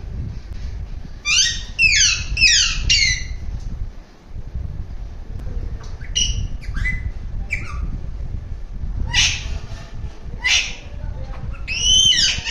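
Alexandrine parakeet calling: a quick run of four harsh, falling squawks about a second in, a few shorter calls around the middle, two raspy screeches later on and another squawk near the end, over a low rumble.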